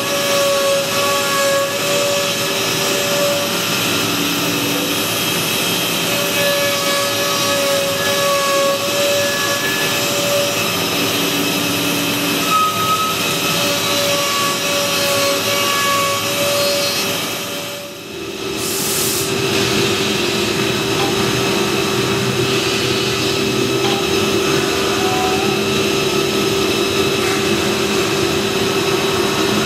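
Automated woodworking machinery running continuously, a steady mechanical hum with intermittent whining tones. About 18 seconds in the sound dips briefly, then carries on as a steadier hum.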